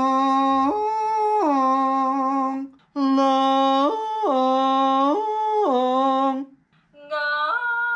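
A voice yodeling on the word "long", flipping back and forth between chest voice and head voice. There are three sung phrases, each leaping up to a higher note and back down several times with clean breaks between them.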